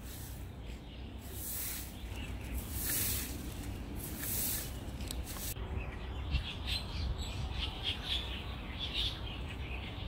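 Several small birds chirping in the trees, tree sparrows among them, with many short chirps from about halfway in. Before that, soft swishes come about once a second.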